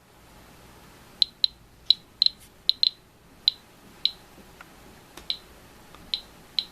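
Geiger counter clicking at an irregular, random rate, about fifteen sharp clicks over several seconds, as it picks up radiation from a thoriated (thorium dioxide) lens element.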